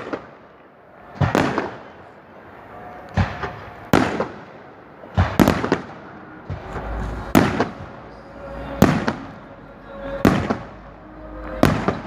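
Fireworks display: aerial shells bursting one after another, about eight loud bangs spaced one to one and a half seconds apart, each trailing off briefly.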